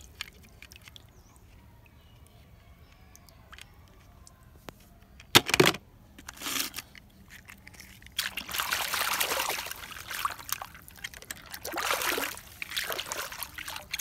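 Pond water splashing and sloshing as a hand pulls a muddy toy truck out of it: one sharp splash about five seconds in, then longer stretches of splashing in the second half.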